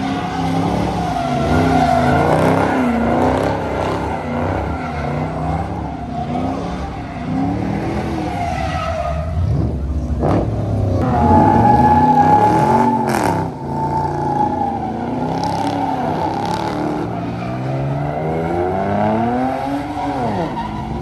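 Muscle cars doing donuts: their engines rev up and fall back again and again while the tires squeal and skid on the pavement. About halfway through, one long high tire squeal sets in and is loudest for a couple of seconds.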